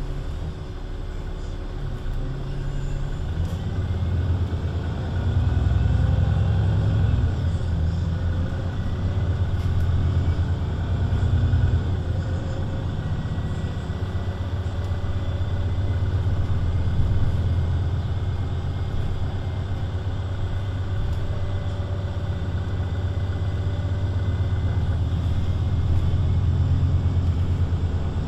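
VDL Citea LLE 120 city bus's Euro 6 diesel engine with a Voith automatic gearbox, running under way: a steady rumble that swells and eases several times as the bus drives, with a faint rising whine at times.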